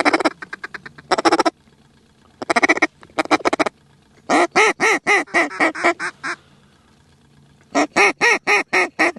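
Mallard duck call blown by a hunter: several runs of loud hen quacks, the longest about ten quacks that trail off in volume, with rapid chattering feed-call clucks between the runs.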